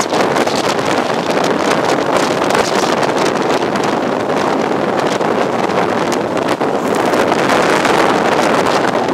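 Loud rush of wind buffeting the microphone at the open window of a moving High Speed Train, mixed with the train's running noise and storm waves breaking against the sea wall beside the track.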